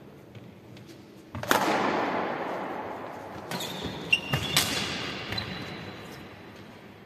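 Badminton rally: racket strings striking a shuttlecock with sharp cracks that echo around a large hall. The loudest hit comes about a second and a half in and rings on for a couple of seconds, then a quick run of hits follows around the middle, with a brief high squeak of a shoe on the wooden court.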